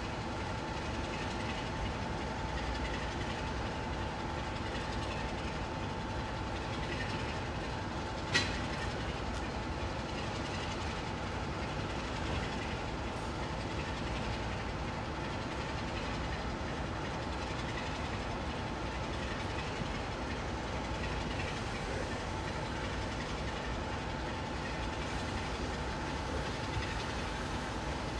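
Locomotive running in the distance: a steady hum with a thin unchanging tone, and a single sharp click about eight seconds in.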